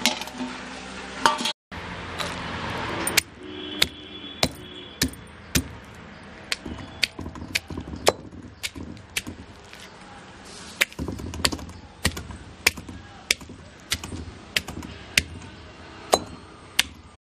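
Granite grinding stone (attukal) being turned in its stone basin over whole shallots, garlic, ginger and coconut pieces. From about three seconds in come sharp knocks and cracks, roughly one every half second, as the stone strikes the basin and crushes the pieces.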